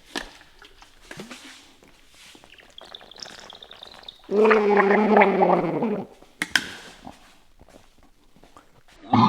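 A man's wordless vocal sound lasting under two seconds, near the middle, falling slightly in pitch, amid faint clicks and handling noise. A couple of sharp clicks follow.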